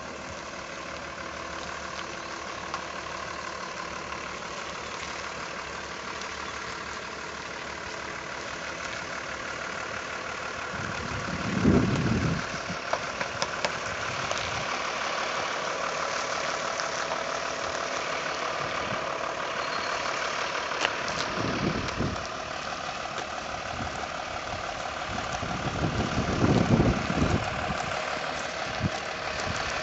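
Iveco rigid flatbed truck's diesel engine running at low speed while it manoeuvres. It grows louder toward the middle, with several short bursts of low rumble from about a third of the way in and again near the end.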